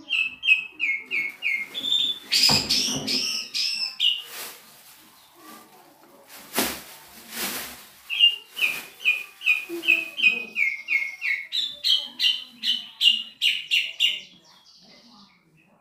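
Asian pied starling (jalak suren) in full continuous song: long runs of short, high, repeated whistled notes, about two to three a second, broken in the middle by a few harsh noisy sounds. The notes stop shortly before the end.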